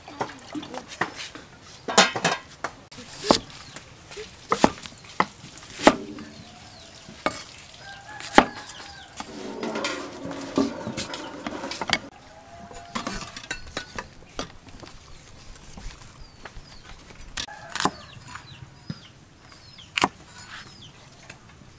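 A knife chopping onion and bok choy on a wooden chopping board, with clinks of a steel tray, heard as scattered sharp knocks at an uneven pace.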